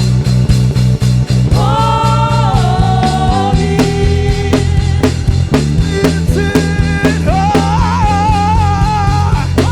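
Live gospel worship band playing: a steady drum beat and bass line, with long held, slightly wavering melody notes coming in over it about one and a half seconds in and again near seven seconds.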